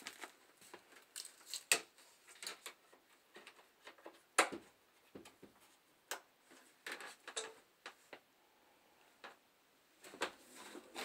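Plastic dialysis tubing and its connectors clicking and knocking as they are handled and fitted into the patient line holder on a peritoneal dialysis cycler. Irregular light clicks and taps, the sharpest about two seconds and four and a half seconds in.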